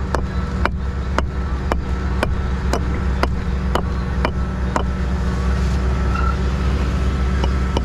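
Hammer striking a walling stone about twice a second, knocking its edges off to dress it; the blows stop about five seconds in. A steady low engine drone runs underneath.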